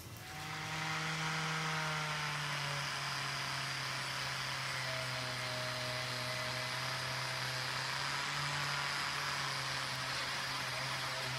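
A power tool's spinning wire wheel brush scrubbing rust off a steel karambit blade: a steady motor hum under a broad hiss of wire on metal. It starts about half a second in.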